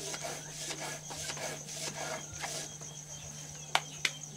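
Maize dough being ground by hand on a stone metate: repeated back-and-forth grinding strokes of the hand stone, stopping after about two and a half seconds. Near the end, two sharp slaps as the dough is pressed between the hands.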